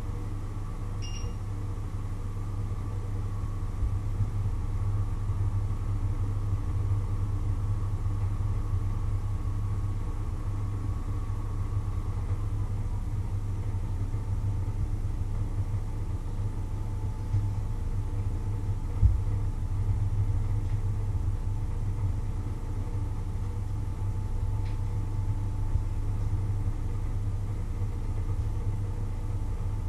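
Steady low electrical hum with a faint high whine that drops slightly in pitch about twelve seconds in, and a short beep about a second in.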